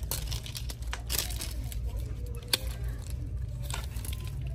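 Hanging wooden bead lanyards and their card tags being handled on a store rack: irregular rustling with a few sharp clicks, the clearest about halfway through, over a steady low hum.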